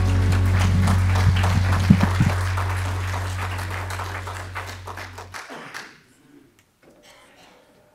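A congregation applauding while the song's accompaniment holds its final chord. The chord stops about five seconds in, and the clapping dies away about a second later.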